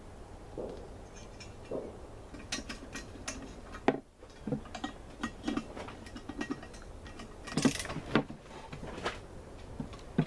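Hand ratchet clicking as the EGR valve's mounting nuts are run down onto the intake manifold, with scattered metal clinks of tools and parts.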